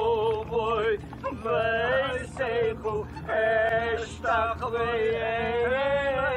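A man chanting a Jewish prayer, holding long notes with wavering, ornamented turns, over a low steady rumble.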